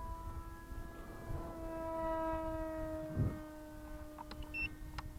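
Motor and propeller of a 3D-printed Spitfire radio-control model plane in flight: a steady whine with overtones that drops slightly in pitch about three seconds in, over wind rumble on the microphone.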